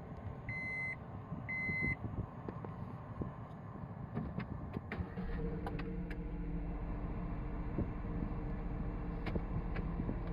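Three short electronic beeps about a second apart, like a car's reverse-gear warning. About five seconds in, a steady low vehicle hum with several held tones starts and continues.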